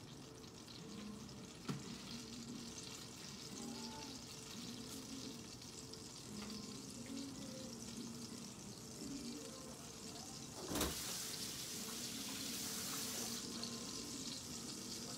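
Faint, steady sizzling of melted butter heating in a frying pan, with a light click early on and a sharper knock about eleven seconds in, after which the hiss is louder for a couple of seconds.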